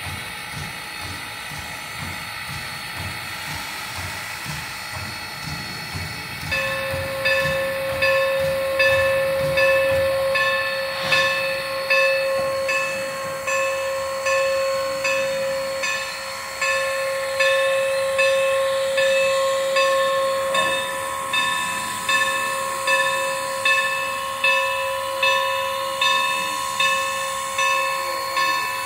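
Norfolk & Western No. 475 steam locomotive standing with steam hissing. About six seconds in, a steady tone sets in along with a rhythmic pulse roughly once a second.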